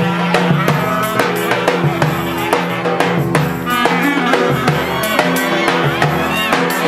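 Instrumental dance music: a drum kit keeps a steady beat under a melody line that bends and slides in pitch.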